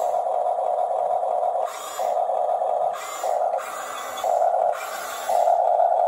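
Electric drive motors and gearboxes of a Huina 1569 RC bulldozer whining in about five short runs, starting and stopping as the tracks drive it backward and forward.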